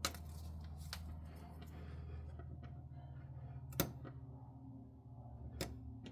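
A few short, sharp clicks and crackles as the plastic backing is peeled off strips of double-sided mounting tape on the wall, over a low steady hum.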